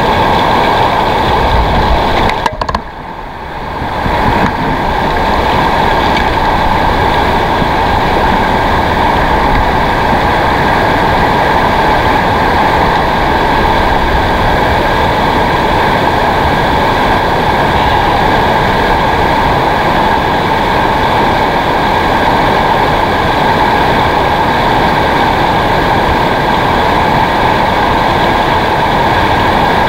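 Fast river water rushing over rocks in a shallow riffle, a loud steady rush that briefly drops lower about two and a half seconds in.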